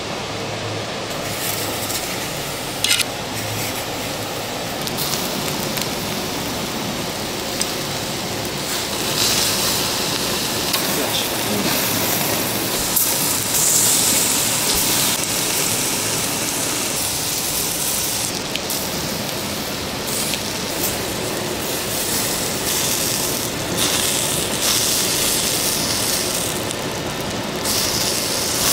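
Fatty beef large intestine and tripe sizzling on a wire grill over charcoal, the dripping fat hissing and flaring up. The sizzle grows louder and brighter from about nine seconds in.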